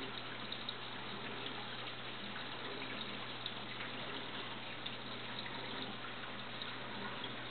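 Aquarium water circulating steadily, a continuous trickling rush with a few faint drip-like ticks, over a low steady hum.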